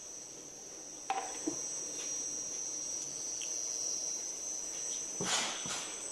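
Automatic bottling line running: a steady high-pitched whine over a faint machine hum, a couple of clicks about a second in, and a short, loud rushing burst a little after five seconds.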